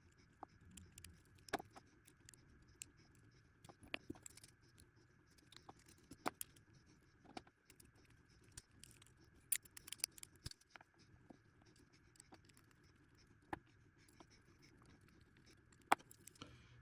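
Folding knife being put back together by hand: scattered light clicks and taps of small parts, screws and the G10 scales being handled and fitted.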